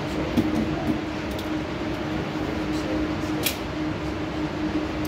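Steady drone of an indoor shooting range's ventilation system with a constant low hum. Over it, a few small clicks from a pistol being handled, the sharpest about three and a half seconds in and a quick cluster at the very end.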